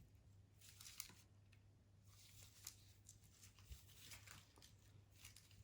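Faint rustling and light crinkling as a nylon belt and its packaging are handled, over a steady low hum.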